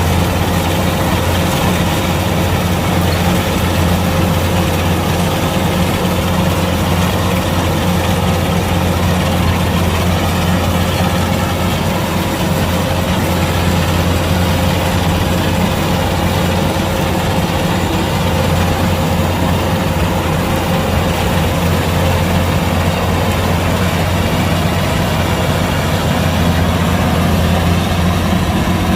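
Kubota DC-105X combine harvester's diesel engine running steadily: a deep even hum with a faint constant whine above it.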